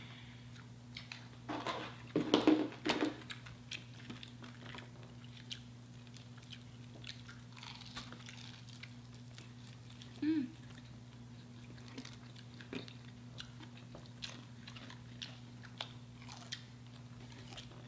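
Close-up biting and chewing of crispy fried chicken, with a run of loud crunches about two seconds in, then quieter chewing and small clicks. A steady low hum runs underneath.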